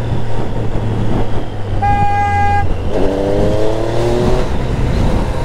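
Triumph Street Triple 765's inline-three engine running at low revs in traffic. About two seconds in a vehicle horn honks once, held for under a second. Then the engine note rises steadily as the bike accelerates.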